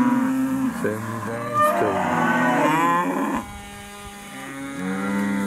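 Angus-cross steers and heifers mooing and bawling, several calls overlapping. A long held call ends about half a second in, a stretch of calls rising and falling in pitch follows, and one more long call comes near the end.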